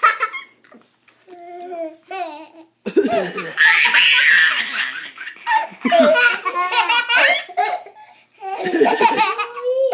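Hearty belly laughter in repeated bursts with short breaks, a reaction to someone's fake coughing.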